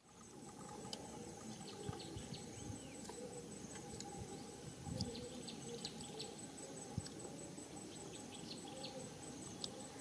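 Insects trilling steadily in the background, a high pulsing buzz with a lower steady tone under it, with scattered light clicks and a few soft taps.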